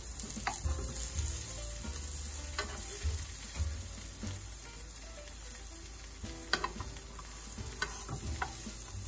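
Egg-battered zucchini slices sizzling in oil in a nonstick frying pan, with a few sharp clicks of metal tongs against the pan as the slices are lifted and stacked.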